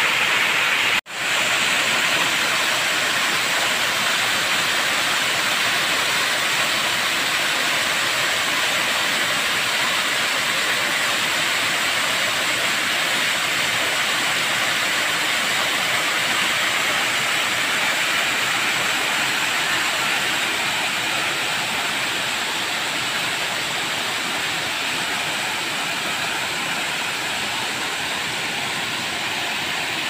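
Waterfall pouring over a rock face into a shallow pool: a steady rushing of falling water that cuts out for an instant about a second in and eases slightly after about twenty seconds.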